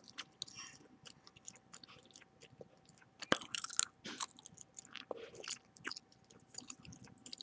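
Gum chewing close to the microphone: wet smacks and clicks of lips, tongue and gum at irregular intervals. The loudest cluster comes about three and a half seconds in.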